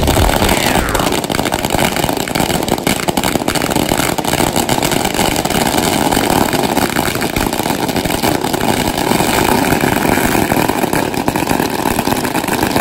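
Long strings of firecrackers hung from tall poles going off together: a loud, dense, unbroken crackle of rapid bangs.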